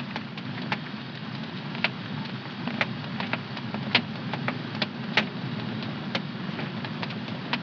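Wood fire in a home fireplace crackling: irregular sharp pops and snaps over a steady low rumble. The loudest pops come about four and five seconds in.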